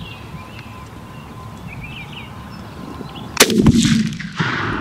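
A single turkey shotgun blast about three and a half seconds in, followed by a rolling echo and the hit gobbler's wings flapping in dry corn stubble. Faint songbird chirps come before the shot.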